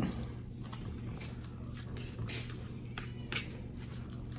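Close-up eating sounds of spaghetti and fried fish: chewing and forks clicking against paper plates, a handful of short clicks spread through, over a steady low hum.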